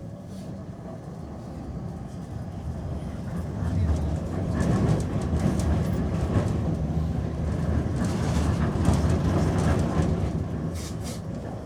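Amsterdam tram heard from inside the car, running along the rails with a steady low rumble. The rumble grows louder a few seconds in, holds, then eases off near the end, with scattered clicks from the wheels and car body.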